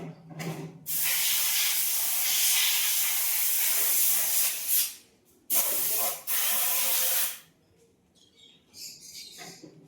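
Two long bursts of loud hissing spray, one of about four seconds starting about a second in, then a shorter one of about two seconds.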